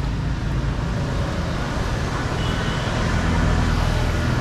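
Street traffic: engines of nearby vehicles running in a steady low hum over general street noise.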